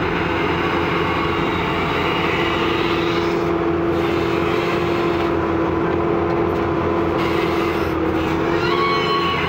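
Diesel engine of a Kobelco SK120 crawler excavator running steadily under load as the machine lifts a full bucket of soil and swings it over a dump truck, with a constant droning tone over a low rumble.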